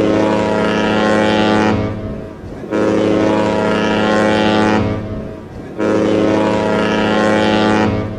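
Cruise ship horn sounding three long, low blasts of about two seconds each, with a short gap between them.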